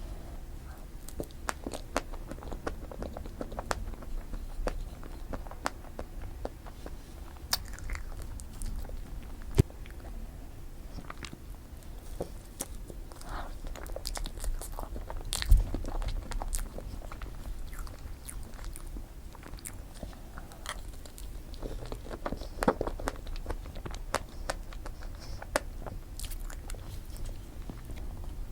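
Close-miked eating of strawberry cream cake: bites and chewing, with many small sharp mouth clicks and wet sounds. Two louder knocks come about ten and fifteen and a half seconds in.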